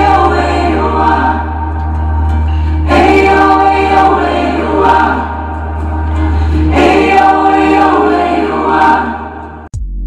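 A song with choir-style singing over a heavy, steady bass line, played loud through a PA system with subwoofers for a sound test. Near the end it cuts off abruptly and an electronic drum beat starts.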